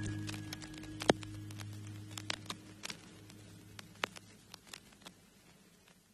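Soft background music fading out, its held notes dying away to near silence, with scattered faint clicks and taps throughout.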